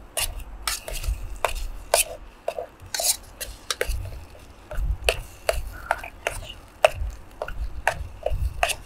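Metal utensils stirring and scraping in a lightweight metal camping pan, with irregular sharp clinks about once or twice a second and dull knocks from the pan being handled.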